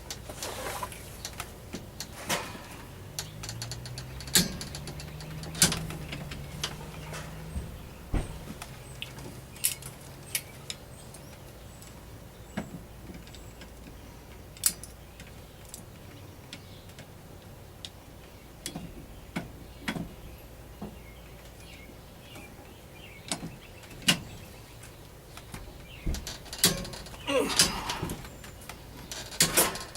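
Scattered clicks, taps and clanks of hand tools and metal parts being handled while an AR-15 upper receiver is assembled. A faint low hum is also heard from about three to twelve seconds in.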